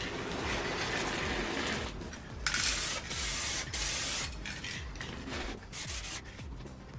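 A cardboard box is rubbed and turned on the floor for about two seconds. Then an aerosol can of two-part (2K) clear coat sprays in several short hissing bursts; the first, about two and a half seconds in, is the loudest.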